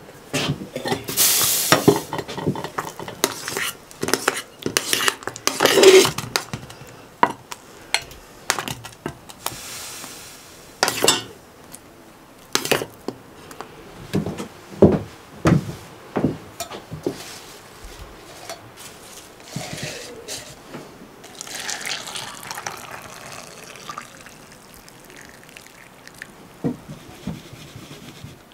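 Kitchen work sounds: water running or being poured in several short spells, with many knocks and clinks of dishes and utensils.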